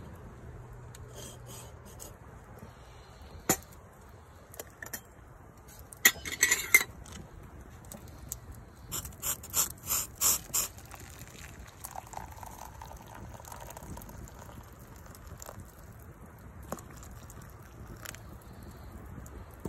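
Water poured from a kettle into a stainless steel cup of pine needles to brew pine-needle tea, with sharp clinks and knocks of camp cookware. The knocks are loudest about six to seven seconds in, followed by a quick run of about six clinks.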